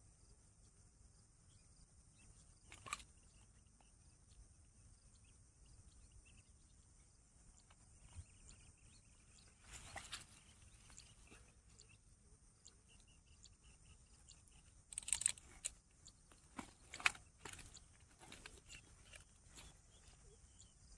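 Faint, steady high-pitched chirring of insects in the grass, with a few short rustles and clicks of handling, the loudest about three-quarters of the way through.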